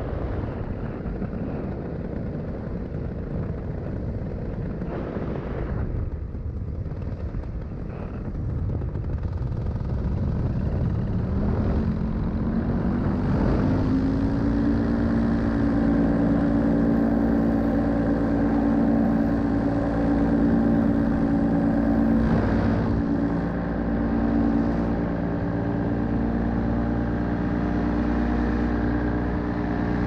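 Paramotor engine in flight, with wind noise on the microphone. It runs throttled back at first, rises in pitch as it is throttled up about eleven seconds in, and then holds a steady, louder pitch.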